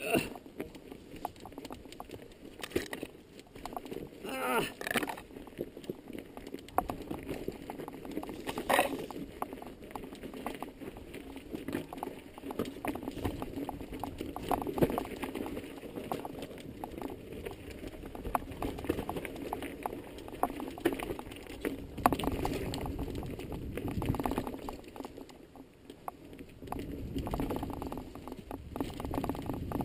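Mountain bike rolling down a rocky trail: tyres crunching over stones and the bike clattering, with irregular knocks throughout.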